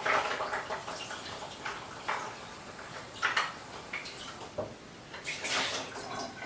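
Kitchen tap water splashing into the sink in several bursts, the loudest near the end, as raw chicken tenderloins are rinsed.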